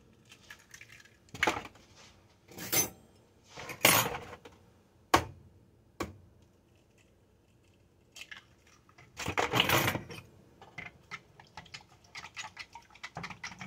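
Eggs being knocked against the rim of a bowl: a few sharp taps about a second apart. After a short pause comes a longer clatter, then a run of quick light clicks of a fork against the bowl.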